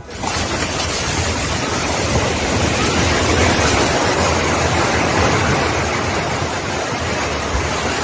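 A multi-storey apartment building collapsing: a loud, continuous rushing rumble of falling debris. It begins abruptly, is loudest about three seconds in, and eases off slowly.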